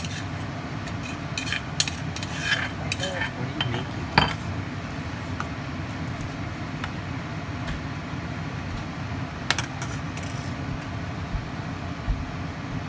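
Metal ladle stirring broth in a stainless steel saucepan, clinking against the pan several times in the first few seconds, with a sharp clink about four seconds in and another near the ten-second mark. A steady low rumble runs underneath.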